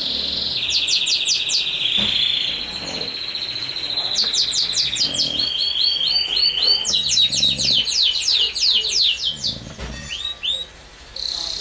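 Birds chirping and trilling loudly in rapid, repeated high notes, with a steadier high buzzing tone in the first few seconds. Faint low snoring from an English bulldog recurs underneath every couple of seconds.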